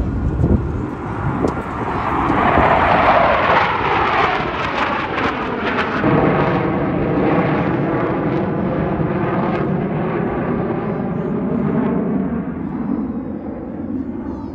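Blue Angels F/A-18 Super Hornet jets flying past, a loud jet roar whose pitch falls as they go by, swelling again about six seconds in.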